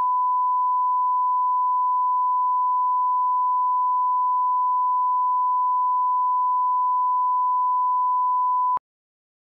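Steady 1 kHz sine-wave line-up tone, the broadcast reference tone that runs with colour bars for setting audio levels. It holds one unchanging pitch and cuts off abruptly near the end, leaving silence.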